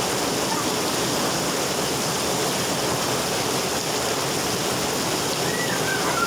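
Heavy rain pouring down, a steady even rushing hiss.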